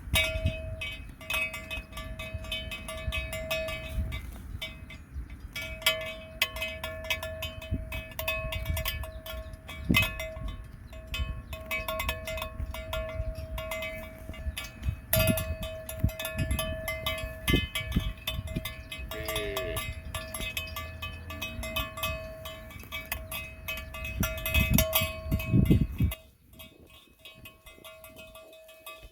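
Cowbells on grazing cattle clanking continuously, a busy stream of strikes over a steady ringing tone. A low rumble on the microphone runs beneath and cuts off suddenly near the end.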